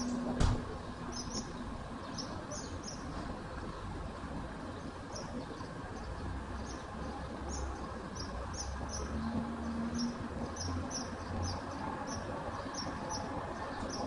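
Bulldozer engine running with a low rumble, with one sharp knock about half a second in. Short high chirps recur over it.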